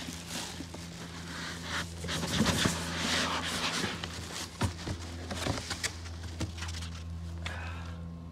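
Plastic wrap crinkling and packing foam and cardboard rustling as a heavy subwoofer is lifted out of its box, loudest about two to four seconds in, followed by a few sharp handling knocks. A steady low hum runs underneath.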